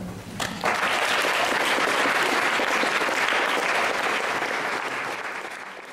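Audience applauding, starting about half a second in, steady, then fading near the end.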